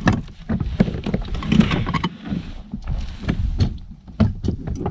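Irregular knocks, bumps and clatter on a kayak as a freshly landed pike, the landing net and lures are handled on board.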